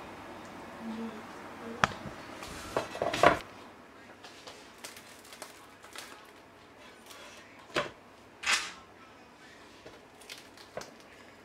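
A few short crunches and knocks as a baked thin-crust pizza is handled and its crisp crust lifted on a wooden pizza peel, with a cluster about two to three seconds in and two louder ones near eight seconds.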